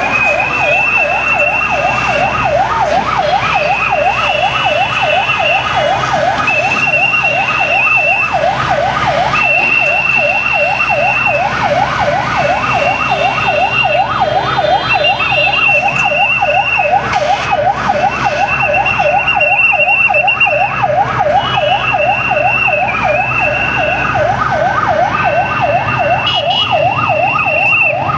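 Emergency-vehicle electronic siren on a fast yelp, wailing up and down about four times a second without pause. Over it a higher steady tone sounds in repeated pulses of about a second and a half each.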